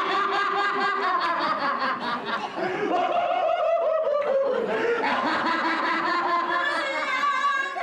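A crowd of spectators talking and laughing, many voices overlapping at once.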